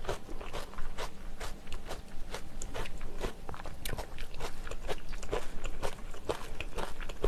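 Close-miked chewing of a mouthful of spicy beef-brisket jjamppong noodles and vegetables: a dense run of small, quick wet mouth clicks.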